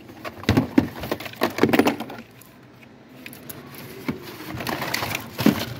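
Clear plastic display cases of model cars clattering and knocking together as a hand shifts them around in a cardboard box, with a flurry of clicks in the first two seconds and more near the end.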